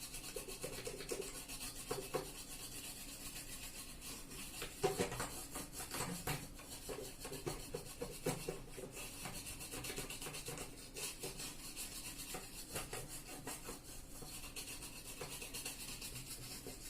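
A brush scrubbing a set-top box circuit board wet with thinner: uneven, scratchy rubbing strokes, fairly faint.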